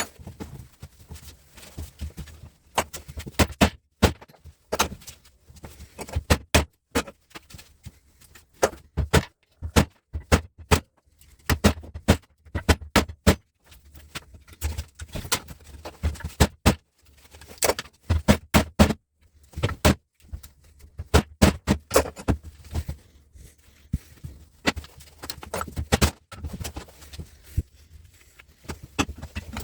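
Rapid, irregular metallic clinks and knocks as metal parts and hand tools are handled and struck while stripping down an electrical switchgear unit.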